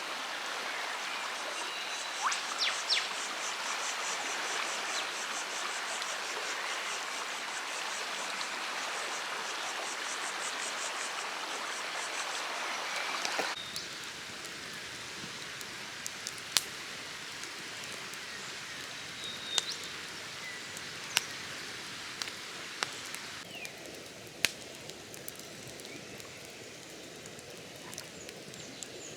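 Steady rushing of river water. The sound changes abruptly about halfway through and again near the end, with a handful of sharp clicks or taps in the later part.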